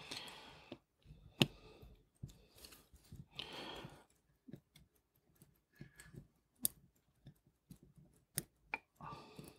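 Faint, scattered clicks and taps of small metal watchmaking tools against the parts of a watch movement, with a few soft brushing sounds; the sharpest click comes about a second and a half in.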